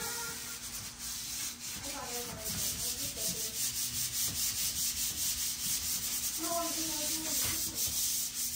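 Sandpaper rubbed by hand over painted cabinet wood in quick back-and-forth strokes, a steady rasping rhythm of about four to five strokes a second. It grows more even from about two and a half seconds in.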